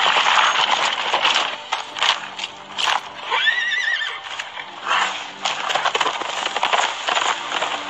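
Horses galloping, with hooves pounding irregularly throughout. A horse neighs once, a wavering call about a second long, starting about three and a half seconds in.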